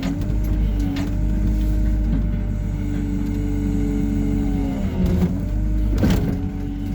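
Hyundai R140W-7 wheeled excavator's engine and hydraulics running with a steady hum whose pitch dips briefly as the machine takes load. Sharp knocks sound about a second in and again around five and six seconds in.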